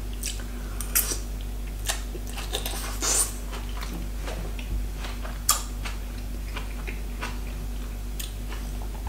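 A metal fork clicking against a ceramic bowl and mouth sounds of chewing salad, a few short sharp clicks scattered through, over a faint steady hum.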